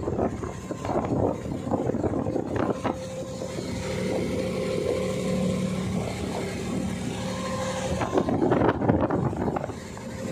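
Wooden boat's engine running steadily, with gusts of wind buffeting the microphone and water rushing along the hull, the gusts strongest near the end.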